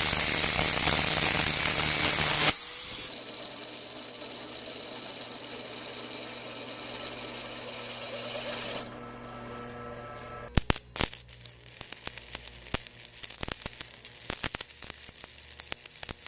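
An angle grinder cuts through a steel tube for about two and a half seconds. Then a drill press runs with a steady hum, drilling through a steel washer. From about ten seconds in, an arc welder crackles with irregular sharp pops as it welds the steel parts.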